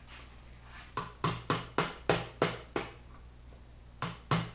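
Rubber mallet giving light taps to a wood chisel driven into a wooden block, about three or four sharp knocks a second. The taps come in two runs, about seven, then a pause, then more starting near the end.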